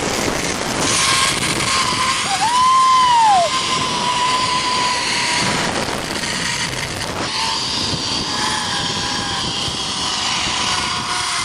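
Zipline trolley pulleys running along the steel cable with a thin steady whine that slides lower in pitch over the last few seconds as the ride slows, under loud wind rushing over the microphone. A brief rising-and-falling tone comes about two to three seconds in.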